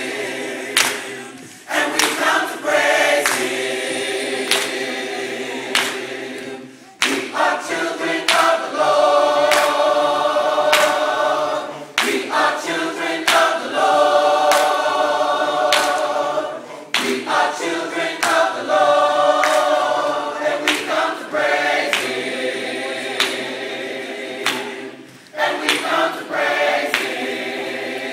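Gospel choir singing in full harmony, in phrases of a few seconds each with short breaks between them, accompanied by sharp hand claps.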